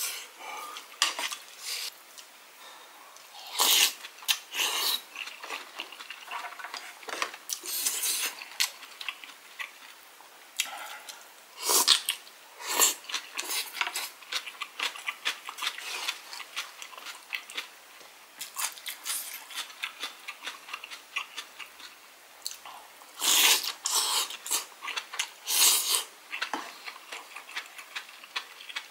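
Eating sounds: a long wooden spoon scraping and knocking in a wooden bowl of rice and a pot of dumpling stew, with chewing between. Short, scattered clicks and scrapes come irregularly, a few louder bursts among them.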